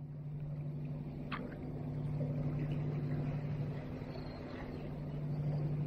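Steady low engine hum, even in pitch, over a soft background hiss, with one brief high chirp about a second and a half in.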